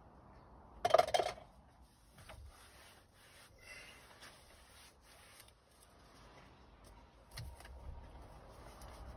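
Irregular rubbing and scraping from a detailer handling the interior of an SUV at its open rear door, with one brief louder clatter about a second in.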